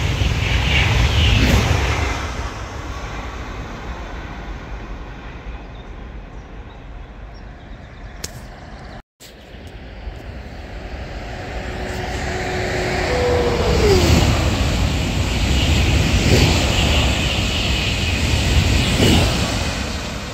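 TGV high-speed trains passing at speed on a high-speed line: the rushing of wheels and air from a TGV Duplex fades as it draws away, then, after a short dropout, the noise of another TGV swells and holds loud, with a brief falling tone as it goes by.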